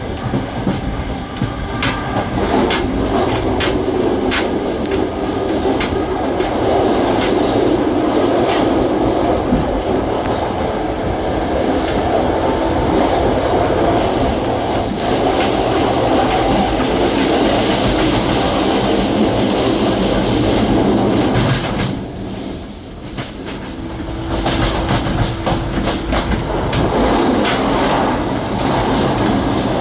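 A série 2100 electric multiple unit (ex-Renfe Spanish train) running, heard from inside the car: a steady rumble of wheels and running gear, with clickety-clack of the wheels over rail joints in the first part and again near the end. About two-thirds of the way through, the noise dips briefly, then a steady hum comes in for a couple of seconds.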